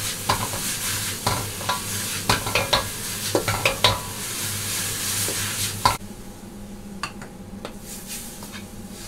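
Bean sprouts and garlic chives stir-fried in a wok over a gas burner: loud sizzling, with a metal ladle repeatedly clacking and scraping against the wok. About six seconds in the sizzle drops away abruptly, leaving a low steady hum and a few scattered clinks as the wok is tipped out over a bowl.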